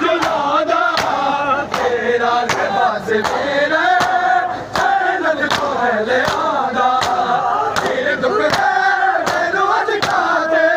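A crowd of men chanting a Punjabi noha in unison while beating their chests with their open hands (matam), the strokes falling together about every three-quarters of a second.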